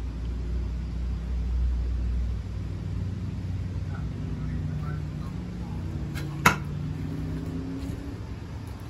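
A low, steady rumbling hum, heaviest for the first two seconds or so, and one sharp knock about six and a half seconds in.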